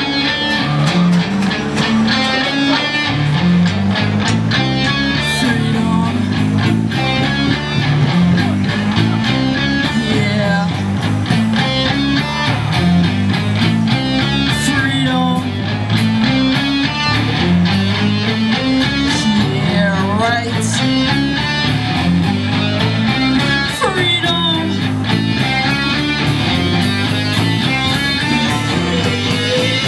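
Live rock band playing an instrumental passage: electric guitars and bass working a repeating riff over a steady drum beat.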